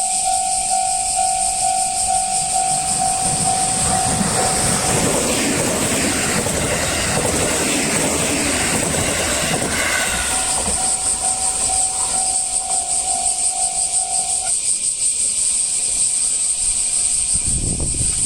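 Japanese railway level-crossing alarm ringing its steady repeating electronic ding while a train passes over the crossing. The wheel and rail noise swells from about four seconds in and dies away after about fourteen seconds, after which the alarm is heard clearly again.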